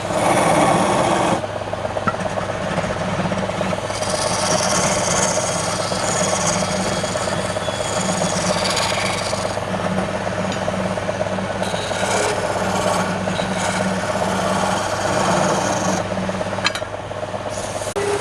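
Wood lathe running with a steady motor hum while a tool scrapes against the spinning wood. The scraping continues throughout, a little softer after about a second and a half.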